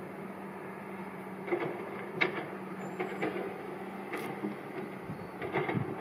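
Distant road traffic: a steady hum from the cars on the road below, with several sharp clicks and knocks scattered through.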